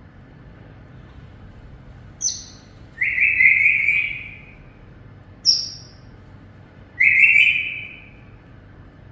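Parrot calling in two rounds: each time a short high chirp, then a louder, lower call about a second long.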